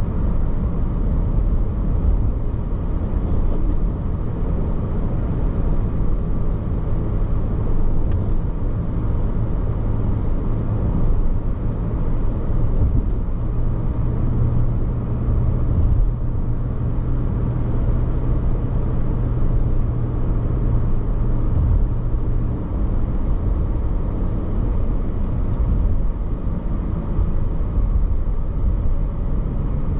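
Steady car road noise heard from inside a moving car: a low engine and tyre rumble that holds even throughout.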